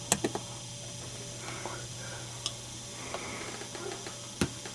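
Quiet room tone with a steady low hum, broken by a few faint clicks and taps: a quick cluster at the start, one midway and a sharper click near the end.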